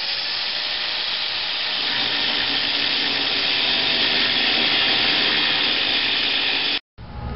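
Handheld angle grinder cutting through a steel roof support brace: a steady high grinding hiss over the motor's whine. The whine levels off in the first half second, and the sound cuts off abruptly near the end.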